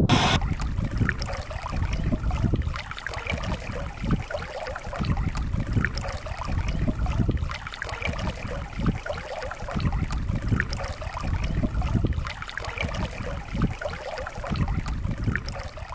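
River water lapping and trickling against a drift boat's hull, with irregular gusts of wind buffeting the microphone.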